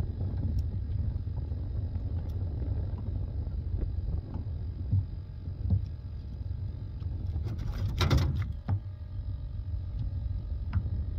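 Wind buffeting the microphone as a steady low rumble, with small clicks and knocks of handling a fishing tool and fish, and one brief louder scuffling burst about eight seconds in.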